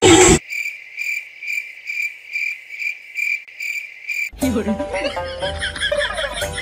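A short loud burst, then a cricket chirping in an even rhythm of about two chirps a second for nearly four seconds. Music comes in near the end.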